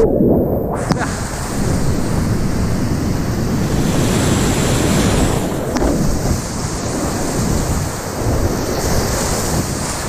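Class V whitewater rapids rushing loudly around a kayak, heard up close from the boat. For under a second at the start the sound goes muffled to a low rumble as water washes over the camera.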